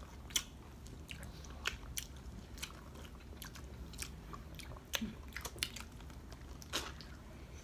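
Two people biting and sucking on orange wedges close to the microphone: sharp wet smacks and chewing clicks at irregular moments.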